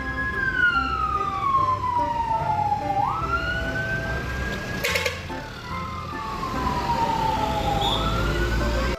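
Police siren wailing: a single tone slides slowly down over about three seconds, snaps back up and holds, then slides down again, two full cycles. A sharp click is heard about halfway through.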